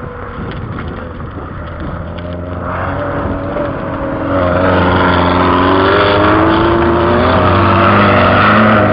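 Race car engine running at speed, growing louder over the first few seconds and then holding loud, its note climbing slightly in pitch.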